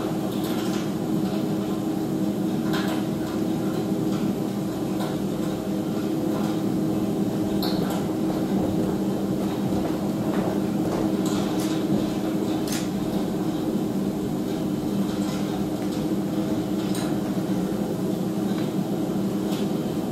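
A steady low hum, with a few faint clicks and knocks scattered through it.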